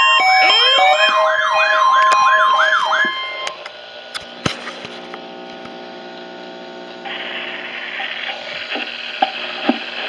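Several NOAA weather alert radios sounding their alarms together for a Required Weekly Test: overlapping warbling siren tones, about three swoops a second, over steady beeps at several pitches. The alarms stop about three seconds in, leaving a steady hum with a few clicks, and about seven seconds in a rushing hiss from the radios comes up.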